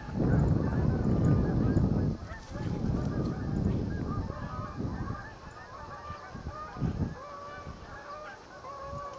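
A flock of geese honking repeatedly, many short calls overlapping at several pitches. For the first few seconds a louder low rumble of wind on the microphone covers them.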